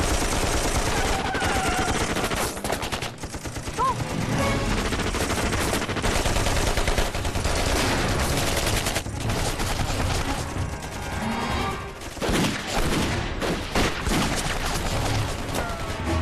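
Dense automatic gunfire from submachine guns and machine guns firing at once in long rapid bursts, with a few brief lulls.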